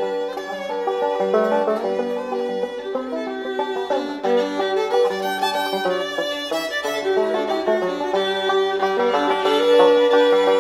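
Background music: an acoustic fiddle tune with plucked-string accompaniment, its notes held and changing in steps.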